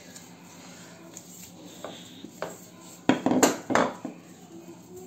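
Wooden rolling pin knocking and clattering on a stainless steel counter as it is put down: two small taps, then a quick cluster of loud knocks about three seconds in.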